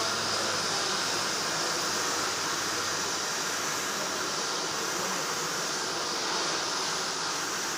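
Electric arc welding on a backhoe bucket: a steady hiss from the arc as a bead is run, even in level throughout.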